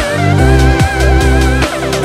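Loud background music: an electronic track with a heavy bass line, drum hits and a wavering lead melody.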